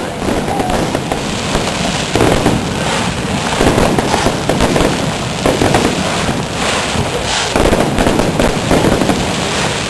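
Fireworks display: a rapid, continuous barrage of aerial shell bursts and crackling, many reports overlapping with no pause.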